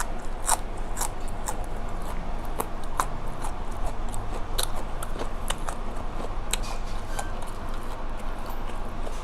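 A person chewing food close to the microphone, with irregular sharp crunches and wet mouth clicks several times a second.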